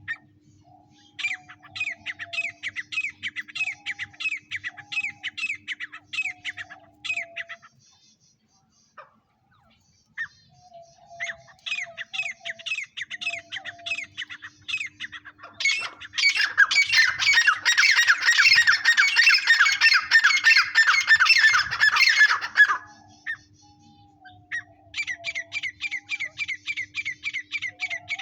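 Teetar (francolin) calling in bouts of quickly repeated sharp, squawking notes, about three a second. The loudest and densest bout comes near the middle and lasts about six seconds.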